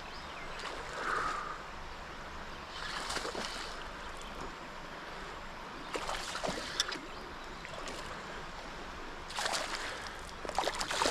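Creek water running steadily, with several short splashes at the surface spread through the stretch.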